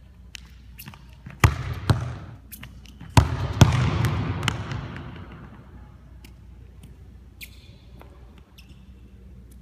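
A soccer ball being kicked on a hardwood gym floor. Two sharp thuds come first. About three seconds in there is a hard kick and a second loud bang, echoing through the big hall for a couple of seconds, followed by lighter scattered taps.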